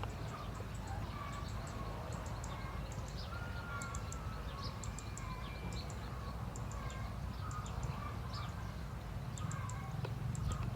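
Birds chirping and calling, many short calls and high ticks, with one longer whistled note about three and a half seconds in, over a steady low rumble.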